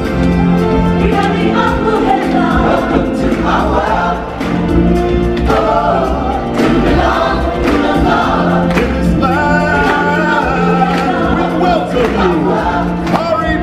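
Live stage-show music: a choir of voices singing together over a steady held low note, with regular drum hits.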